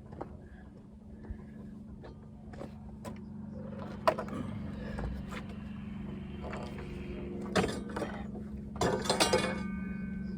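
A steady engine hum, with a single sharp knock about four seconds in and a short clatter of knocks near the end.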